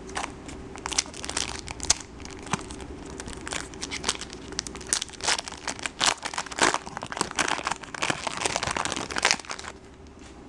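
Foil wrapper of a 2012 Bowman Chrome baseball card pack crinkling as it is torn open and crumpled, in dense irregular crackles that stop near the end.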